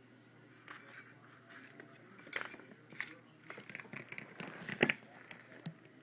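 Irregular clatter and knocks of an empty metal shoe-freshener spray can being grabbed, bitten and rolled on a wooden floor by a ferret, the loudest knock about five seconds in.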